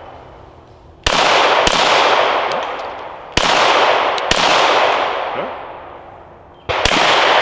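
Semi-automatic pistol firing five shots in quick pairs, each shot echoing off the surrounding woods in a long fading tail. These are control pairs: two rounds fired back to back, then a pause before the next pair.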